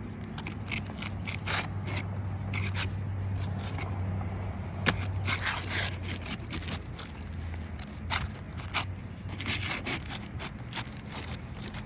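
Scratchy scraping and crackling of hands-on work on asphalt roof shingles, in short irregular strokes, with one sharp click about five seconds in. A low steady hum runs underneath.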